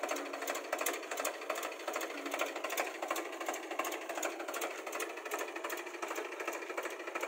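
ALT 4000 tractor's diesel engine running, a fast, even clatter.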